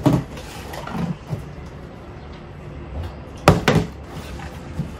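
A partly filled plastic bottle knocking on a table top: one knock at the start, then two sharp knocks in quick succession about three and a half seconds in as a flipped bottle lands and topples onto its side.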